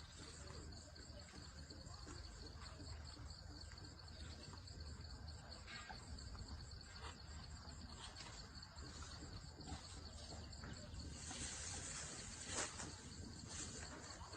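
Faint steady chorus of insects chirping, with a low rumble underneath and a few short snaps or knocks, the loudest about twelve and a half seconds in.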